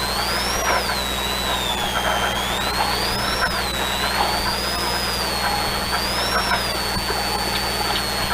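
BMW M3 Compact rally car heard from inside the cabin, driven slowly with its clutch gone: a steady low drivetrain drone under a high gear whine that rises and falls with road speed, sliding down near the end.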